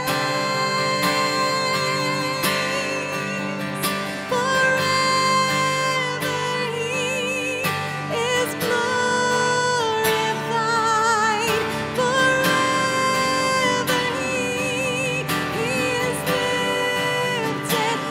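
Live acoustic worship song: a woman singing sustained notes with vibrato over an acoustic guitar strummed in a steady rhythm.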